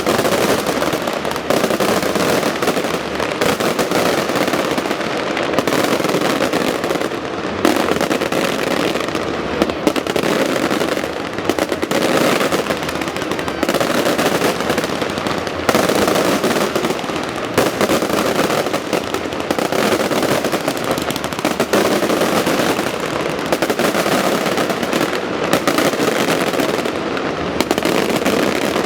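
Fireworks display going off continuously: dense, rapid crackling bangs overlapping one another without a break.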